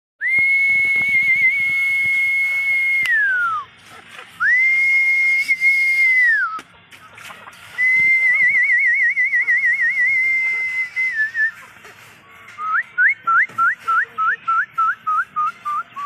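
Whistling: two long held notes at one pitch, each sliding down at the end, then a longer note that warbles, then a quick run of short rising chirps at about three a second.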